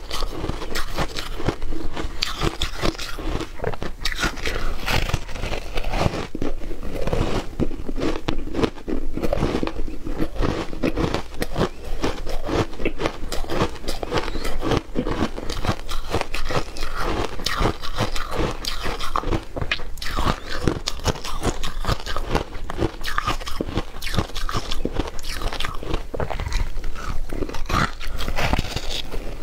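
Ice coated in matcha powder being bitten and crunched between the teeth: a dense, continuous run of sharp cracking and chewing.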